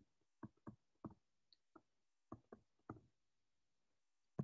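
Faint taps and ticks of a stylus on a tablet screen during writing, about eight light taps in the first three seconds, then a sharper knock at the very end.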